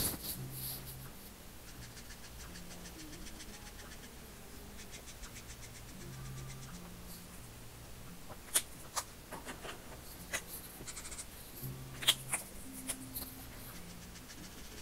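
Felt-tip alcohol marker scratching across paper in short strokes, with a few sharp clicks from handling the markers, the loudest about halfway through and near the end.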